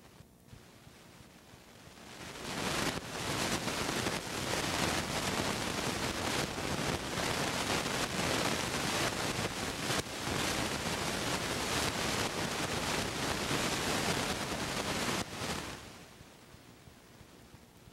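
Loud, steady hiss of noise on an old home-video soundtrack, starting about two and a half seconds in and cutting off about fifteen seconds in.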